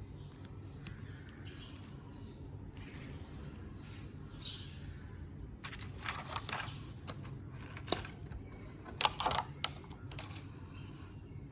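Sewing kit items being handled: light rustling with scattered small clicks and taps, a sharp click about eight seconds in, and two louder clattering clusters, one about six seconds in and one about nine seconds in.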